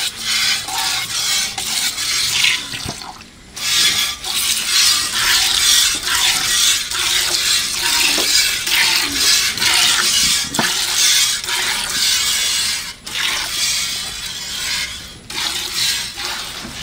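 Jets of milk squirting in a quick, even rhythm as a cow is milked by hand, the milk streaming into a filling container. The squirting stops briefly about three seconds in and twice more later on.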